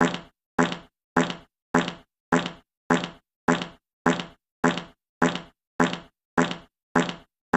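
A short, buzzy fart sound effect, repeated as a loop: one identical blurt about every 0.6 seconds, each cut off sharply and fading within a third of a second.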